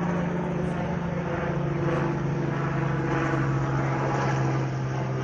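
An engine droning steadily, its pitch dropping slightly about a second in.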